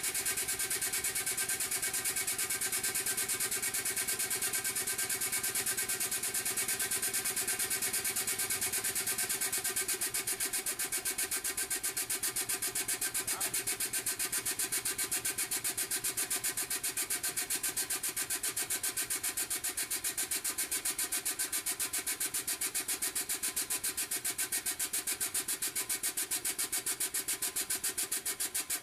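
Air-driven pump of a Compac A5816-C air-hydraulic bus jack running with a rapid, even pulsing. Its three-stage ram is extending under the weight of a bus.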